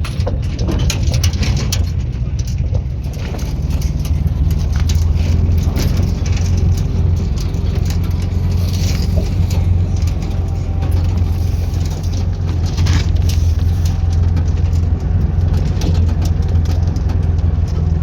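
A motor vehicle driving, heard from on board: a steady low engine and road rumble, with frequent small knocks and rattles over it.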